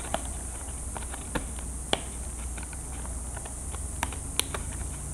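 Small scattered clicks and scratches of a hobby knife carving a slot in a balsa aileron, over a steady background hum and hiss.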